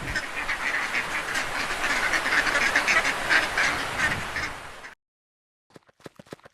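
Ducks quacking, many short calls overlapping like a flock, fading out about five seconds in.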